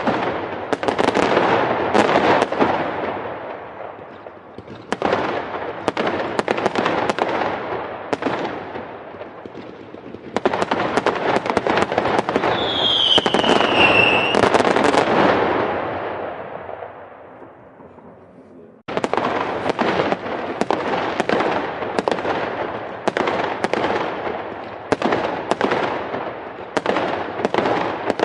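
Fireworks going off in a dense barrage of sharp bangs and crackling that swells and fades in waves. About halfway through there is a brief high whistle falling in pitch. Near two-thirds through, the sound drops away and then cuts suddenly into another rapid run of bangs.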